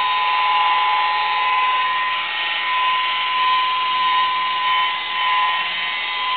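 Small handheld electric polisher with a yellow foam pad running steadily against car paint: a constant high motor whine, dipping slightly in level now and then as it is worked over the panel.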